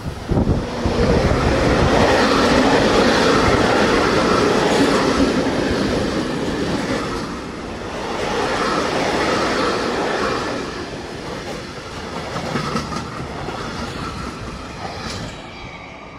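Freight train of open wagons, hauled by an ÖBB Taurus electric locomotive, passing close by: loud rumble and clatter of the wagon wheels on the rails, fading near the end as the train draws away.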